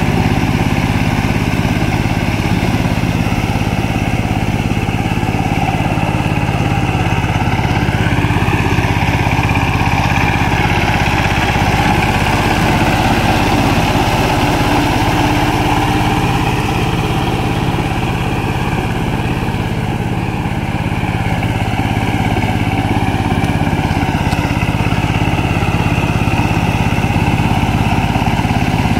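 The Saifing 12-horsepower single-cylinder diesel engine of a two-wheel power tiller running steadily under load, pulling the tiller on rubber wheels through wet paddy mud.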